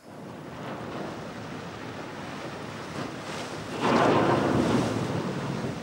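Ship's bow breaking through sea ice: a steady rush of water and ice along the hull, swelling about four seconds in to a louder splashing surge as the bow rides into a floe.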